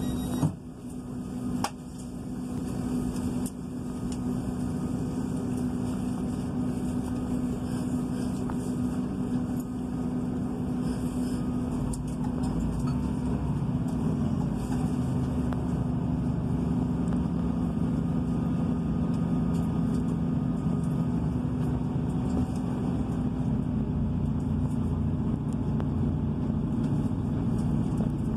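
Class 158 diesel multiple unit heard from inside the carriage: the underfloor diesel engine hums steadily at the platform, then the rumble slowly builds as the train pulls away. There is a sharp knock about half a second in.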